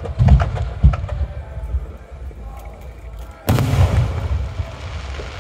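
Aerial firework shells bursting overhead: a few booms in the first second, then a louder, sharper bang about three and a half seconds in, trailing off in a hiss.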